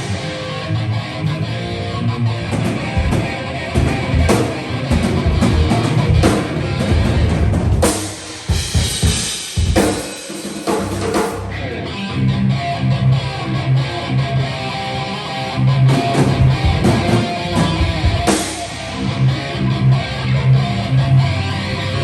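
Heavy metal band playing live during a sound check: distorted electric guitar over a drum kit, with a stretch of ringing cymbals and little low end about eight to eleven seconds in.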